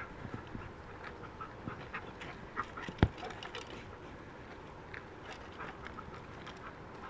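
A working search dog panting, with one sharp click about three seconds in.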